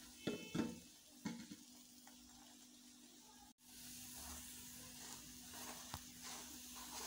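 Paratha batter sizzling faintly in an aluminium frying pan over a gas burner, with a steady low hum underneath. A few light knocks come in the first second or so.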